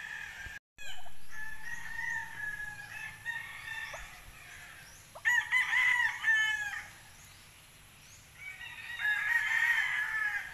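Domestic poultry calling after a brief dropout: thin high peeping and calls early on, a loud drawn-out crow-like call about five seconds in, and more calling near the end.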